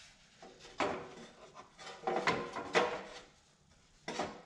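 Metal clunks and rattles as loosened exhaust parts are worked against a garden tractor's front frame: about four separate knocks with quiet gaps between.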